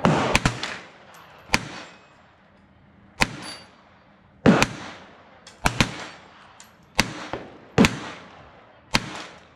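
Semi-automatic .22 LR shots from an AR-15 fitted with a CMMG .22 conversion upper: about ten sharp single reports at irregular gaps of roughly one to one and a half seconds, a couple in quick pairs, each with a short ringing tail.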